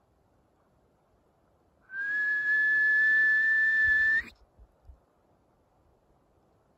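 A loud, long high whistle held on one steady note for about two seconds, rising slightly as it starts and flicking upward just before it cuts off sharply.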